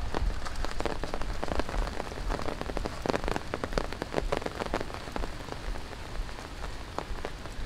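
Tropical rain falling steadily, with many close, irregular drops tapping over the hiss of the downpour.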